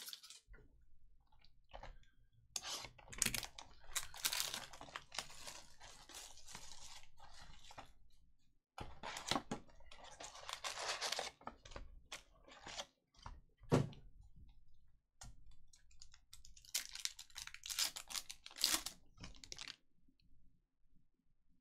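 Trading-card pack wrapper crinkling and tearing open, and cards rubbing and sliding against each other as they are handled, in several rustling stretches with short pauses and one sharp click about fourteen seconds in.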